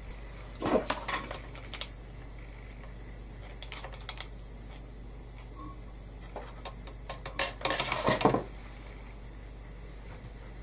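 Small craft items handled on a cutting mat, making short clinks and rustles about a second in and a louder clatter of handling at around seven to eight seconds.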